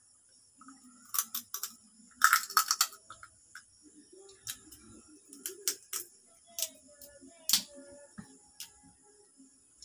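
Shell of a boiled Krusan crab cracking and snapping as legs are broken open by hand, heard as a scattered series of sharp clicks, with a loud quick cluster a little over two seconds in.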